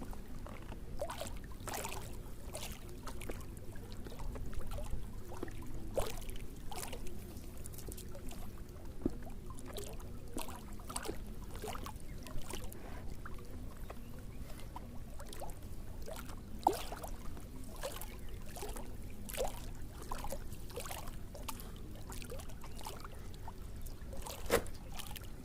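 Water splashing and dripping at a slow, irregular pace, with small knocks and clicks, as a fishing net is handled and moved through shallow water; one sharper knock about two-thirds of the way through and another near the end.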